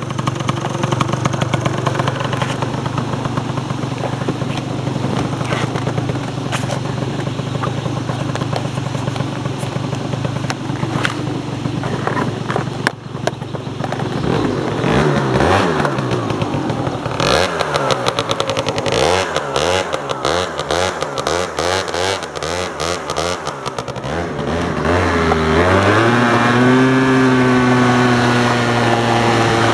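MBK Nitro 100 two-stroke scooter engine with a Leovince ZX expansion-chamber exhaust, idling steadily, then revved in a series of throttle blips from about halfway through. Near the end it climbs to high revs and holds there.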